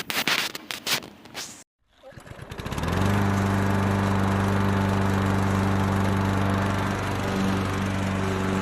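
A few short clattering knocks. About two seconds in, the electric motor of a Flymo Vismo lawnmower winds up over about a second, then runs steadily with a hum and a whir of the spinning blade.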